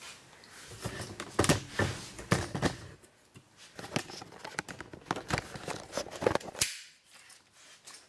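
Handling noise from the camera being picked up and repositioned: an irregular run of clicks, knocks and rubbing that stops suddenly near the end.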